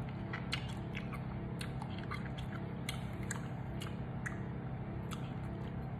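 A person chewing crisp green mango: irregular small crunches and clicks over a steady low hum.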